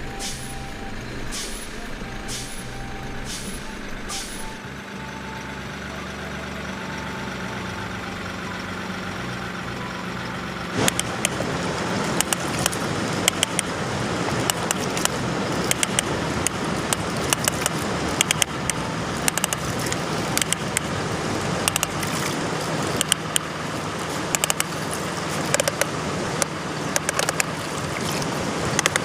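Heavy truck's diesel engine running steadily, with light regular ticking at first. About eleven seconds in it gets louder, and the rest is full of sharp clacks and rattles.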